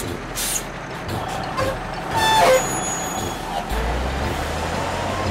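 Cartoon sound effect of a tow truck's engine running as it drives, with a brief louder pitched sound a little over two seconds in and a deeper drone joining near the end.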